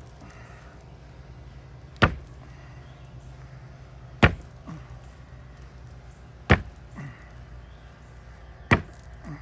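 Bare-fist punches landing on the flat cut face of a live sweet gum tree trunk used as a makiwara: four sharp strikes about two seconds apart.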